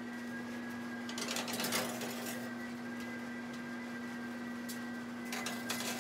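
Glass baking dishes slid onto an oven's wire rack, scraping and clattering in two bursts, the first about a second in and the second near the end, over a steady machine hum from the running convection oven.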